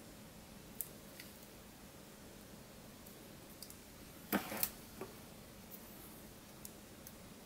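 Hands handling a small metal paint tin in clear plastic shrink-wrap: a few faint clicks and taps, with a short run of louder crinkling and knocking a little past the middle.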